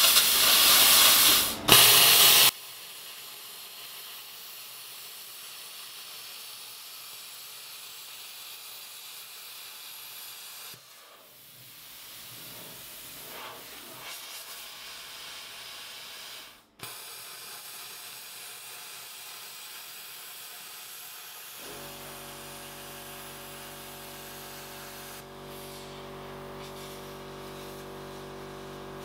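A plasma cutter hisses loudly as it cuts through the stainless steel kettle wall, then stops about two and a half seconds in. A much quieter steady hiss follows, and a steady hum joins it near the end.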